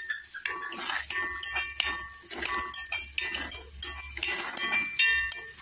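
Onions frying in hot coconut oil in a pan, sizzling steadily while a spatula stirs them, with frequent clinks and scrapes of metal against the pan that ring briefly.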